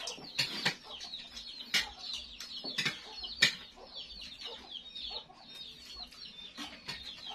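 Chickens clucking, with short high chirps, and sharp clinks of spoons on plates now and then.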